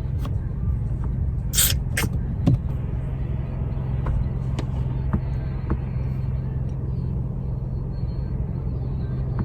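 Steady low rumble of a car's engine and drivetrain heard inside the cabin, the car at or pulling up to a red light. A few short clicks, about a second and a half and two seconds in.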